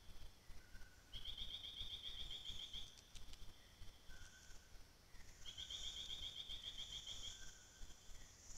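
Forest ambience: a high, rapidly pulsed trill about a second and a half long, heard twice, over a steady high hiss of insects.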